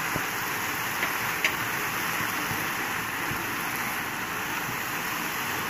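Shredded cabbage and vegetables sizzling steadily in a nonstick frying pan while a spatula stirs them, with a couple of light spatula taps about a second and a second and a half in.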